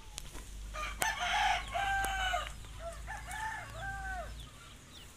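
A rooster crowing once, starting about a second in and ending on a drawn-out note, followed by a run of short calls.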